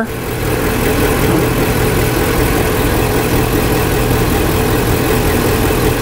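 The 4.6-litre V8 engine of a 2009 Ford E250 van idling steadily, with no revving.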